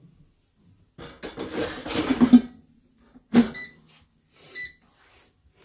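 Swan digital air fryer's basket of chips rattling as it is handled and pushed back into the fryer, shutting with a single knock about three and a half seconds in. The fryer's control panel gives two short beeps just after.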